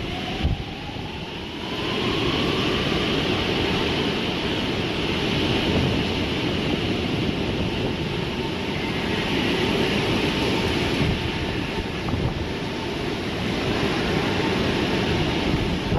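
Hurricane-force wind rushing and gusting, buffeting the microphone, with a faint whistle rising in pitch in the first couple of seconds.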